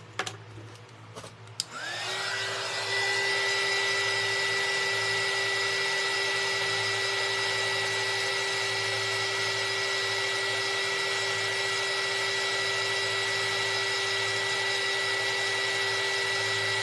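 A small handheld craft heat tool switched on about two seconds in, its fan motor spinning up quickly and then running steadily with a high whine over a rush of blown air, drying a freshly painted acrylic swatch.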